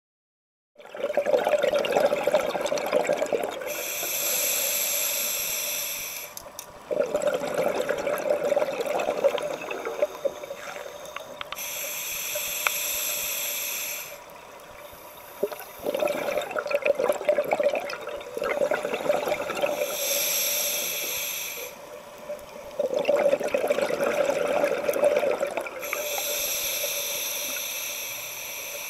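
A scuba diver breathing through a regulator underwater, four slow breaths. Each inhale is a hiss of air through the demand valve, and each exhale is a gurgling rush of bubbles.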